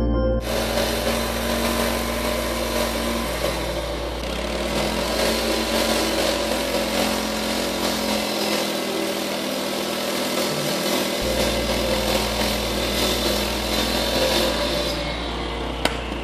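Petrol walk-behind asphalt saw with a water-fed blade running steadily, its engine hum under a harsh, hissing grind from the blade cutting the asphalt; the high grinding eases off near the end. A brief snatch of music comes at the very start.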